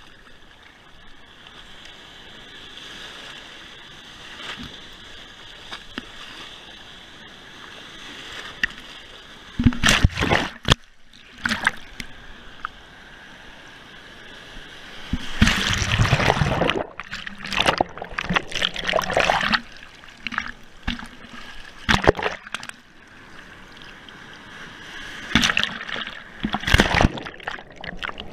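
Sea surf splashing and churning around a GoPro camera as it dips in and out of the whitewater. A steady muffled hiss for the first several seconds, then a run of loud, irregular splashes, the biggest about halfway through and again near the end.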